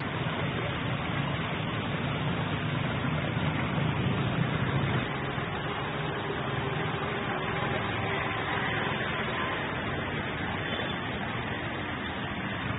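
Small rain-fed stream running over rocks: a steady noise of flowing water, a little louder for the first five seconds or so.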